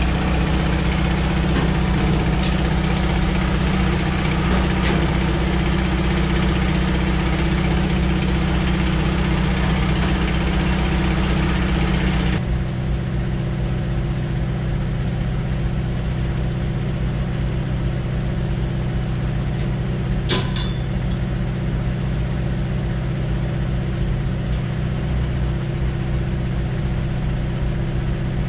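Ford E350 van engine idling steadily. About twelve seconds in the sound changes abruptly and the hiss over the top falls away. One sharp click comes about twenty seconds in.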